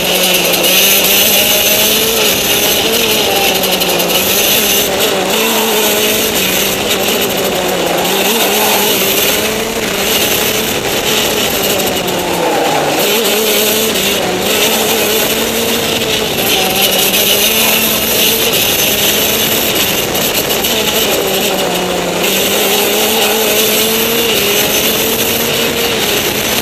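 Go-kart engine running hard on track, its pitch rising and falling with speed and dipping briefly about ten and thirteen seconds in, over a steady rush of wind noise.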